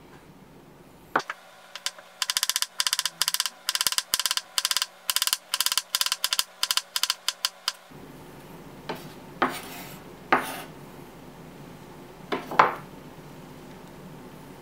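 Kitchen knife slicing a cucumber on a wooden cutting board. It makes quick, even chops, about four or five a second, for several seconds, then a few separate knocks against the board.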